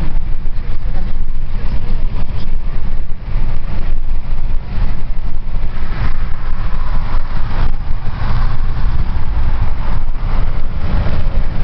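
A car driving at motorway speed, heard from inside the car: a loud, steady rumble of road and wind noise.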